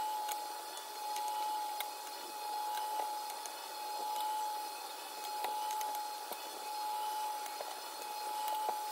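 Steady hum of an electric appliance with a constant mid-pitched whine, swelling and fading gently about every second and a half. Faint scattered clicks of a spoon and fork against a ceramic plate.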